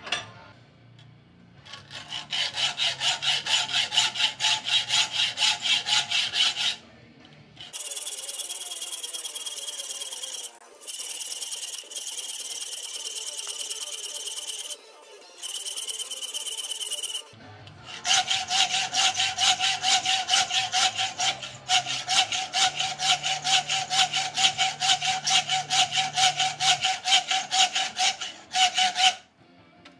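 Hacksaw blade sawing at a hardened steel screw held in a vise, metal scraping on metal. Two stretches of fast, even strokes are separated by a middle stretch of continuous high-pitched scraping with a few brief stops. The hard screw resists the blade.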